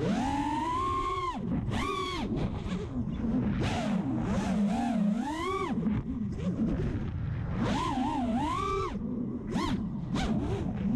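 Brushless motors (DYS Fire 2600kv) of a 220 mm FPV quadcopter whining from onboard, the pitch rising and falling sharply with the throttle through flips and rolls, with gusts of wind rush in between.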